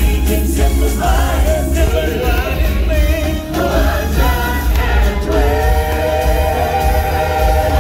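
A group of singers performing with band music over a heavy bass line, in long held notes through the second half.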